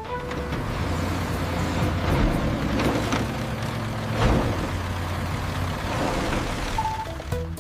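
Road traffic sound effect: vehicle engines running steadily with a low hum. Two louder swells come through, about three and a bit over four seconds in.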